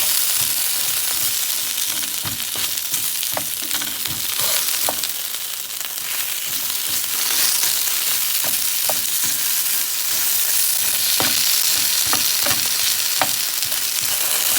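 Thinly sliced potatoes frying in hot oil in a pan: a steady, loud sizzle, with a utensil clicking against the pan now and then as they are stirred.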